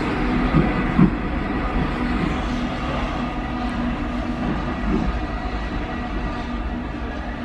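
Warsaw Metro train running into the platform: a steady rumble with a motor hum and a couple of light knocks about a second in.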